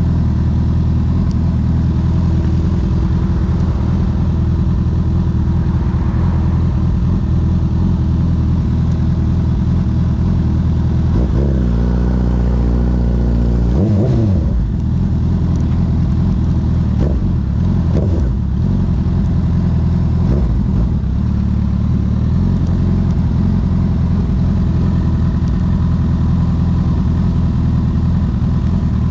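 Honda CB1000R's inline-four engine running through a CS Racing full exhaust system while riding, the pitch rising and falling with the revs; about halfway the revs hold steady for a couple of seconds, then drop, with a few quick rev changes soon after.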